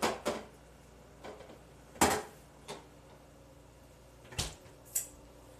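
A handful of sharp knocks and clunks from someone working in a kitchen, spread irregularly through a few seconds, the loudest about two seconds in.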